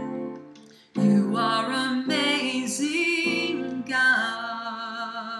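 A woman singing over sustained keyboard chords. A chord is struck about a second in, followed by a held sung phrase with vibrato. A new chord about four seconds in rings on and fades.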